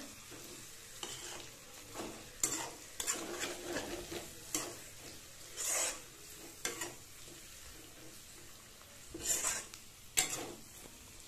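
A slotted metal spoon stirring and scraping sliced onions and green capsicum around a metal kadhai, in irregular strokes about every second or so, over a steady sizzle of stir-frying.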